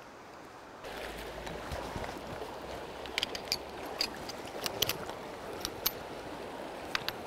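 Shallow river riffle running over rocks: a steady rush of water that starts about a second in, with scattered sharp clicks from about three seconds in.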